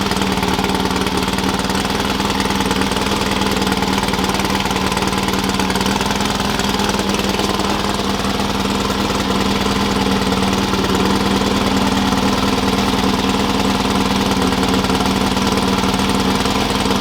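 An engine running steadily at an even, unchanging speed, with a strong droning hum.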